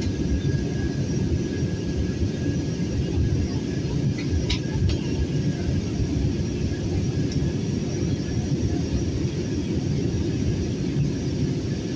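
Jet airliner in its climb after takeoff, heard from inside the passenger cabin: a steady low rumble of engine and airflow noise with a faint steady whine. A couple of small clicks come about four and a half seconds in.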